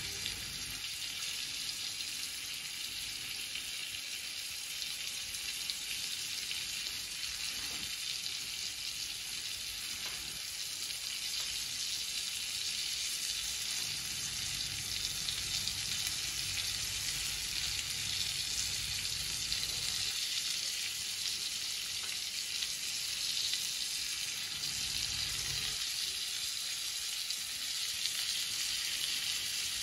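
Coconut-flour-coated crayfish frying in hot oil in a pan: a steady sizzle throughout, with a few faint clicks and a low rumble that comes and goes in the second half.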